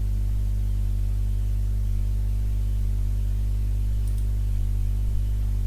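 Steady electrical hum with a stack of evenly spaced overtones, unchanging throughout, typical of mains hum picked up by the recording microphone. A faint click comes about four seconds in.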